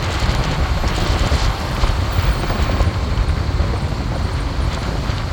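Road noise from a moving vehicle, with a steady rumble of wind buffeting the microphone.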